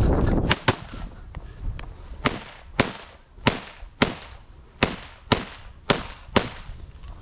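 Custom 2011 pistol in .357 SIG firing a string of about ten shots, mostly in pairs about half a second apart as each target is engaged. A loud rumble of movement comes just before the first shot.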